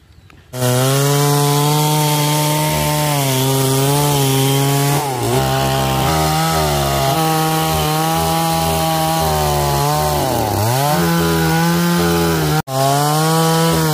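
Oyama petrol chainsaw running at full throttle, cutting through a felled palm trunk. The engine note sags twice as the chain bites into the trunk, and the sound breaks off for an instant near the end.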